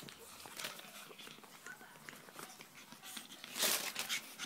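Newspaper crinkling and rustling under pug puppies scrambling over it, in many short crackles, with a louder burst of crumpling about three and a half seconds in.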